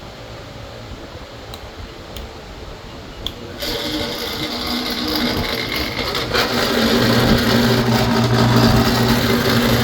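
Craftsman drill press running with a steady motor hum. It gets suddenly louder and fuller about a third of the way in, and louder again a little past halfway.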